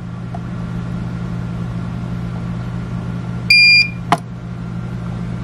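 Nurture Right 360 incubator's control panel giving one short, high beep about three and a half seconds in as its menu and minus buttons are held to change the setting, followed by a click. Under it runs a steady low hum.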